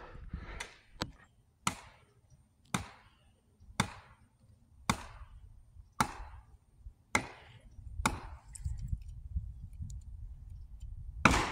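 Sharp knocks about a second apart, about nine in a row, as a 12-ton hydraulic jack under a hollow tree of heaven is pumped to push the tree over. Near the end comes a louder, longer burst as the tree starts to give.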